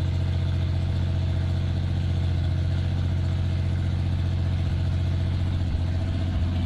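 The 1983 AMC Eagle SX/4's engine idling steadily with a clattering valvetrain. The clatter comes with about 60 psi of oil pressure, which the owner finds odd.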